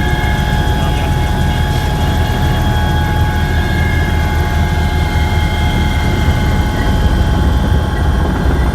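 Helicopter in flight, heard from on board: a steady low rotor and engine drone with constant high whining tones over it.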